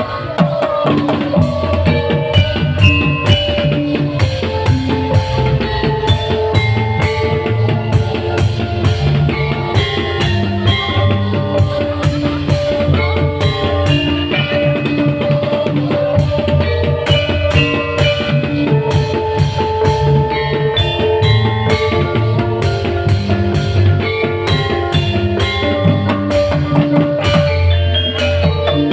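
Live band music: a drum kit keeping a steady beat under sustained melodic instrument lines, played loud and continuously.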